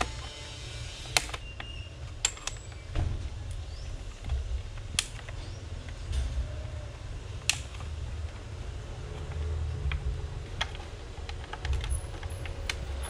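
Scattered sharp clicks and taps, one every second or two, over a steady low rumble.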